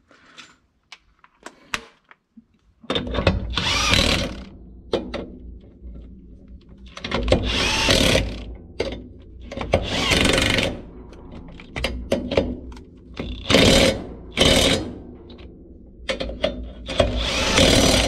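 Cordless impact wrench hammering in about six bursts of about a second each, starting about three seconds in, as it runs down the bolts on a disc mower's cutter disc.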